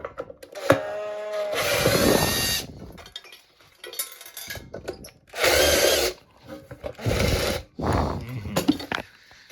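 Power drill/driver running in several short bursts with a steady whine, trying to back out a screw that won't unscrew.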